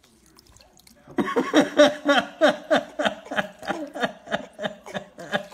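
A person laughing hard in quick, rhythmic bursts of about four a second, starting about a second in.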